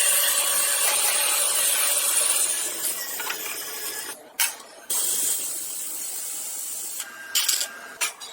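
Pressurised spray hissing in long bursts. It cuts off about four seconds in, starts again a second later, and breaks into a few short spurts near the end.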